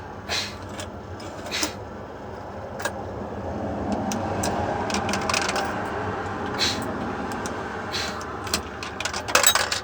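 A road vehicle passing, its noise swelling through the middle and fading, with a few sharp clicks and knocks scattered through it and a cluster near the end.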